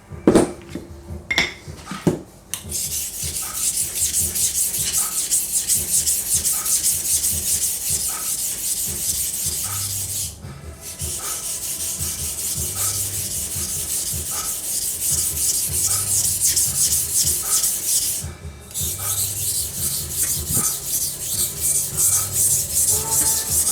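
Paring knife blade being rubbed back and forth on a sharpening stone, a steady run of rhythmic scraping strokes. It starts after a few short knocks and stops briefly twice along the way.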